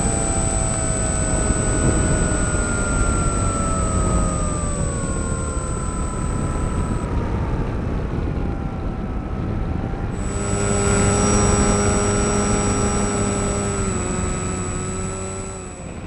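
RC model aircraft's motor and propeller running, with rushing air, heard from on board. The motor's pitch sinks slowly over the first ten seconds, then holds steadier and slightly louder; a thin high whine sits above it.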